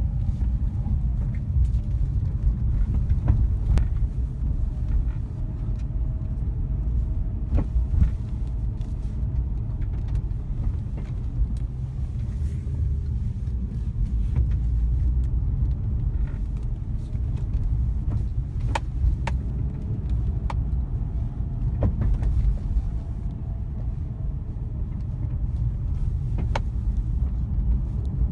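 Nissan 350Z on the move: a steady low rumble with irregular, sharp knocks from the front suspension, a knock at the front centre or front near side that newly replaced drop links have not cured.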